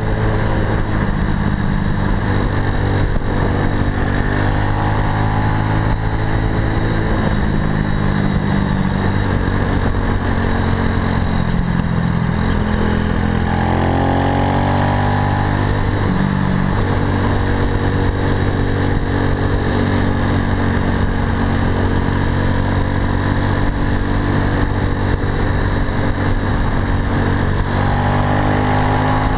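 Zongshen 190 cc single-cylinder four-stroke engine of a Super Cub-style motorcycle running under way at part throttle, over a steady rush of wind and road noise. The engine note falls a little after the middle, then climbs again, and rises once more near the end.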